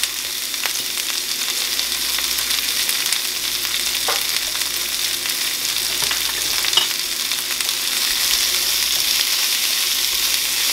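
Chopped bell peppers and onions sizzling in hot oil in a cast-iron skillet: a steady frying hiss with faint crackles.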